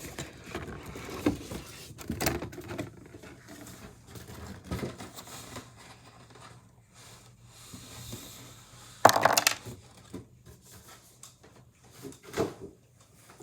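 Handling noise as a toy box and figure are moved about on a table: scattered knocks, scrapes and rustles, with the loudest clatter about nine seconds in.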